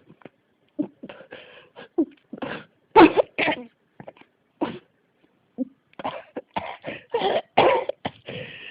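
A person coughing over and over in an unstoppable fit: many short coughs, loudest about three seconds in, a brief lull, then a close run of coughs near the end.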